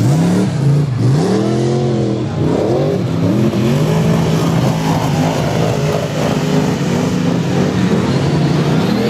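Stockcar racing engines revving on a dirt track, the pitch swinging up and down in the first few seconds as the cars accelerate and lift off, then holding fairly steady before climbing again near the end.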